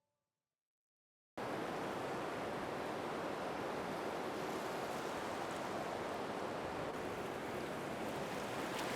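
Silence, then about a second and a half in a recording of ocean surf cuts in suddenly: a steady, even wash of waves with no distinct breakers.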